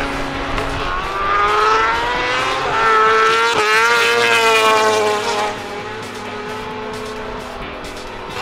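Racing superbike engines at high revs: the pitch climbs as a bike accelerates, is loudest as a bike passes close about four seconds in, then drops to a quieter, steadier sound as the bike runs off into the distance.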